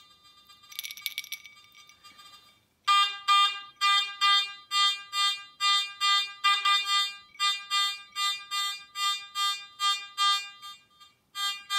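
Garrett AT Max metal detector on its stock coil, set to all-metal, sounding its target tone as an early-1800s crotal bell is waved back and forth over the coil: a train of short, identical beeps about two to three a second from about three seconds in. The crotal bell jingles briefly in the hand about a second in.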